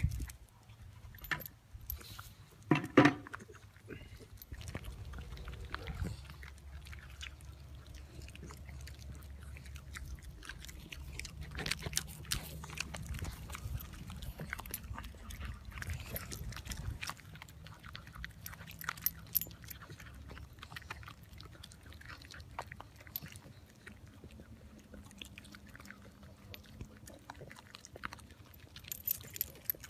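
Two schnauzers chewing and licking live black soldier fly larvae off concrete: a run of small wet smacks and crunchy clicks, with a louder knock about three seconds in.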